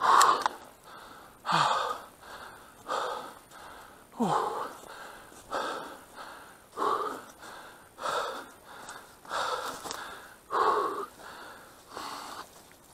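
A person breathing hard and loudly close to the microphone, one heavy gasping breath about every second and a bit, as when out of breath from moving fast on foot.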